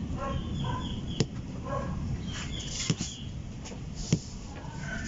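Three sharp clicks as hands work the lead wires on an electric fan motor's copper-wound stator, over a steady low background rumble. Chickens call faintly in the background.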